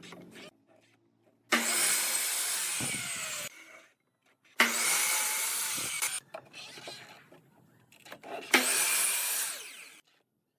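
A power tool working wood in three runs of about two seconds each, with short quiet gaps between; each run starts and stops abruptly.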